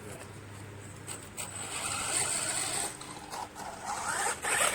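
Monster RAZR RC truck running on a 3S battery, its electric motor and drivetrain whirring in bursts of throttle with a faint high whine, tyres scrabbling on dirt.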